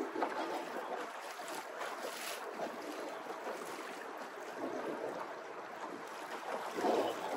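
Choppy water lapping and splashing against the hull of a small plastic boat under way, with wind on the microphone. A louder splash comes near the end.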